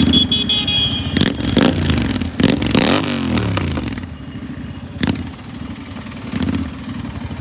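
Royal Enfield Continental GT 650 parallel-twin running with its exhaust removed, revved and let fall back, with a sharp crack about five seconds in.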